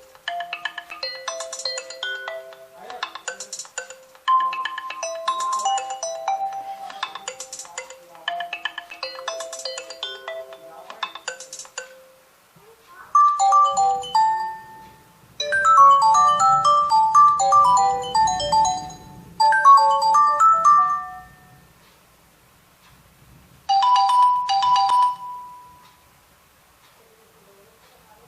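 Stock Nokia 2.2 ringtones and alert tones playing one after another. A looping melody of short electronic notes runs for about twelve seconds, followed by a short phrase, a fuller tune with a low part, and a brief two-note chime near the end.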